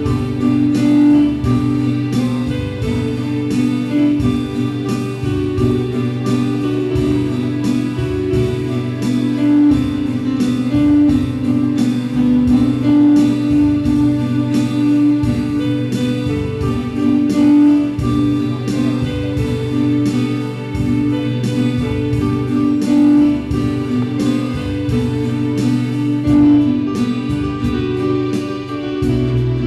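Instrumental music played live by two students, with a melody over held notes and a steady beat.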